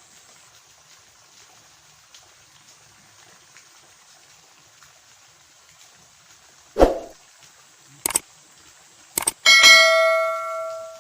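A thump and a few sharp clicks, then something metal struck once and left ringing, fading over a second or so near the end.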